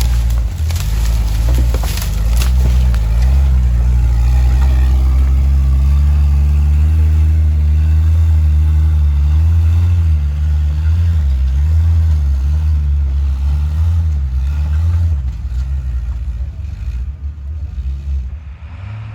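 Powerstroke diesel engine in a Ford Bronco running, its pitch rising and falling as the throttle changes, with some knocking in the first few seconds, then dropping away near the end.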